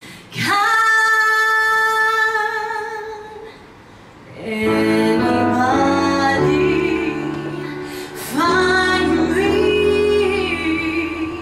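Woman singing live into a handheld microphone. She holds one long note with no accompaniment, which fades out, and then from about four seconds in she sings on over a sustained instrumental accompaniment, starting a new phrase near the end.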